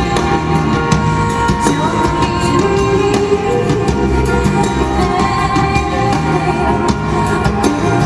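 Live band music from a concert recording: sustained pitched chords over a moving bass line, with sharp strikes scattered throughout and a singing voice.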